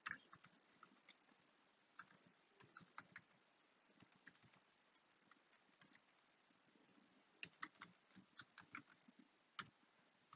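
Faint computer keyboard typing: scattered single keystrokes, with two quick bursts of several keys, one about three seconds in and one about two-thirds of the way through.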